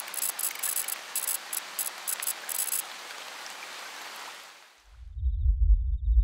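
A steady hiss like rain or spraying water, with quick crackles in its first half. It fades out about five seconds in, and a deep rumble starts and builds.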